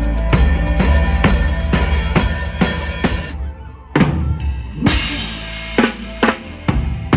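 Live mor lam band with the drum kit loud and up front: kick and snare keep a steady beat for about three seconds, then after a brief drop the kit and band play a run of separate, spaced accent hits.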